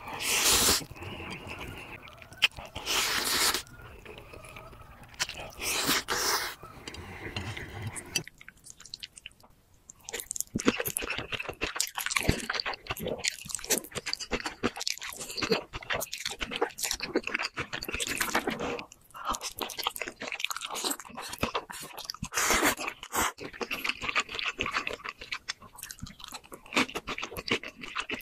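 Close-miked eating: three long, loud noodle slurps in the first eight seconds, then steady wet chewing and crunching of cheese-corn noodles and crispy fried food in dense clicks and crackles.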